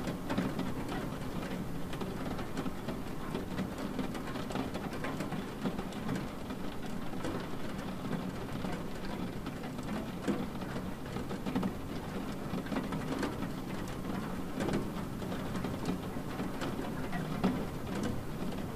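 Steady rain falling, with scattered light taps of individual drops.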